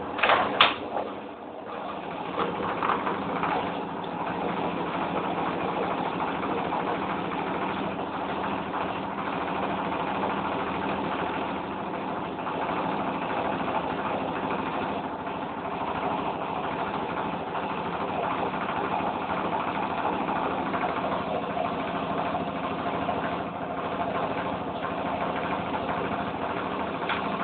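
Hoover Electra 1100F washing machine in its final spin, motor and drum running at a steady speed with a constant hum. A brief loud knock about half a second in.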